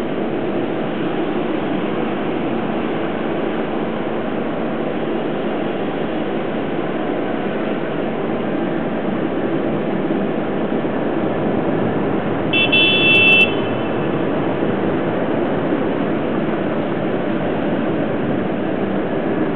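Steady hum of city road traffic, with one short, high-pitched car horn toot lasting about a second, about two-thirds of the way through.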